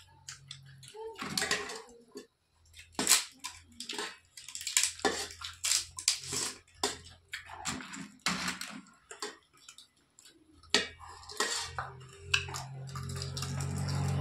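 Eating at close range: crisp papad crunching and spoons clicking and scraping on metal plates, an irregular string of sharp crackles and clinks.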